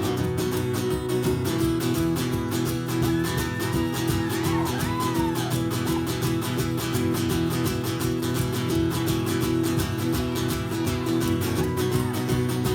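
Acoustic guitar strumming steady chords in an instrumental break between sung verses of a folk song. A brief higher melodic line comes in a few seconds in.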